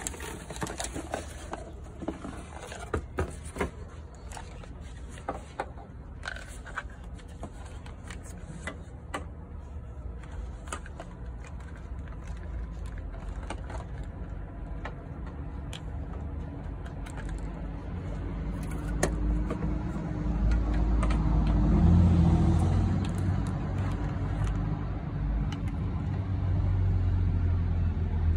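Cardboard box and plastic parts being handled: scattered clicks, knocks and scrapes as an electric fluid-extractor pump and its tubing are unpacked and fitted together. In the second half a low rumble with a steady hum builds up and becomes the loudest sound.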